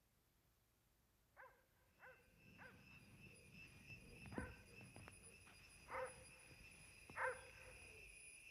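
Faint night ambience: a steady high trill, like insects, sets in about two seconds in. Through it come about six short animal calls, the loudest near the end.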